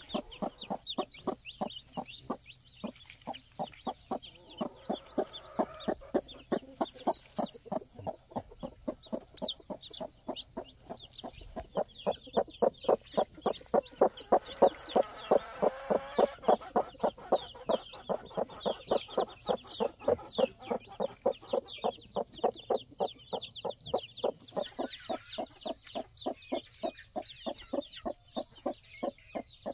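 A hen clucking steadily, about three short clucks a second, with chicks peeping high above her.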